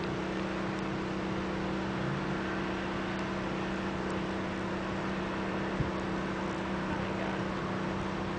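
Steady motor hum over a constant hiss, with a single faint click a little before six seconds in.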